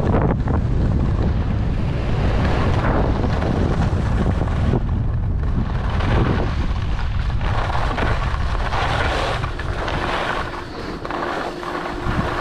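Wind rushing over the microphone while skiing fast down a groomed run, with skis hissing and scraping over the snow through the turns. It eases near the end as the skier slows, and a faint steady hum comes in.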